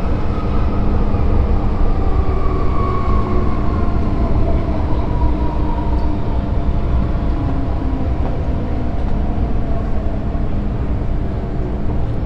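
MTR M-train electric multiple unit running along the track, heard from inside the car as a steady rumble and running noise. Its traction-motor whine falls in pitch over the first five seconds or so as the train slows.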